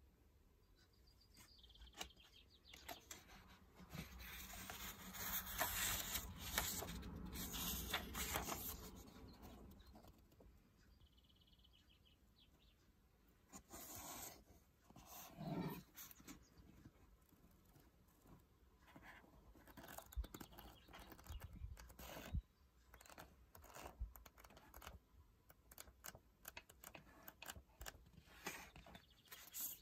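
Faint rustling and flicking of a paperback book's pages as it is handled, opened and riffled through. There are a few seconds of louder rustling a few seconds in, then scattered short page flicks and soft taps.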